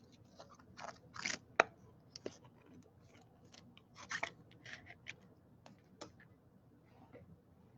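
Baseball trading cards being handled and slid against one another, a string of short, irregular scrapes and soft clicks.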